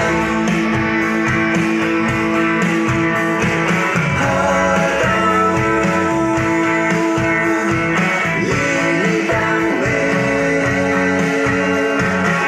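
Music played through a PA system: guitar and a steady beat, with a group of young voices singing along in held notes.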